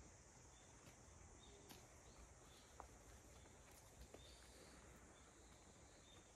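Near silence: faint outdoor garden ambience with a steady high insect hum, light chirps every second or so, and a few soft clicks.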